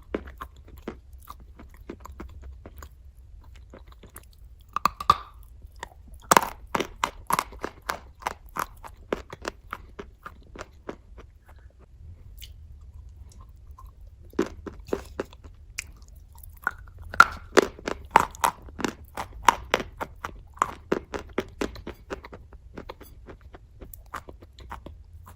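Close-up crunching and chewing of a large piece of white chalk dipped in red clay paste, in runs of sharp crunches with a quieter pause in the middle.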